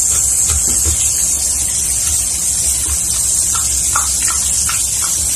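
A steady hiss like running water, with a Samoyed licking its lips over it: short wet clicks of the tongue, several a second in the second half.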